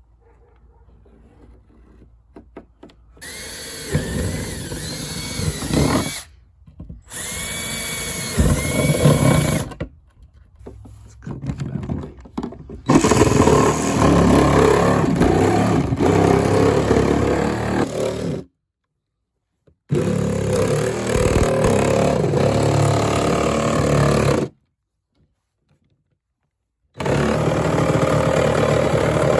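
Power tools cutting a hole for a fan: a drill whirring in short bursts with its pitch rising and falling, then a jigsaw running steadily in long stretches that cut off abruptly.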